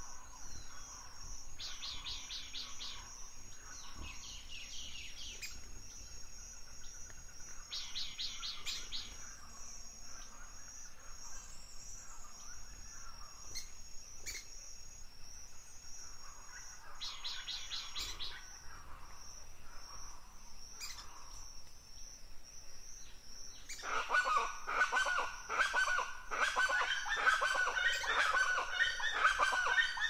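Forest birds singing: short, rapid trilled phrases every few seconds over a steady high-pitched hum. About six seconds from the end a louder, busier run of many overlapping calls sets in.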